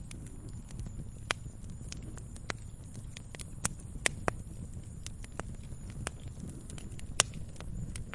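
Wood fire crackling: irregular sharp pops and snaps over a steady low rumble, the loudest pop a little after seven seconds in.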